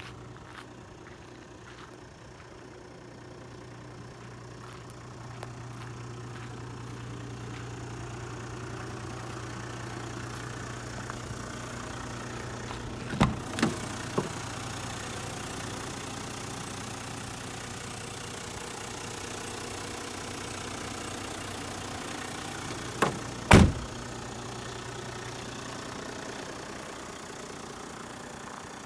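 Hino Liesse II's 1HD-FTE turbo-diesel straight-six idling steadily. A few sharp clicks of the front door being opened come about halfway in, and a loud door-shutting thud comes about two-thirds in.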